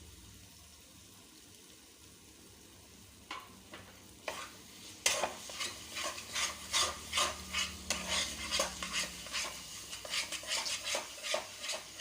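A spatula stirring and scraping masala frying in a kadhai. It starts with a couple of single knocks, then about five seconds in turns into quick, repeated scrapes against the pan, several a second.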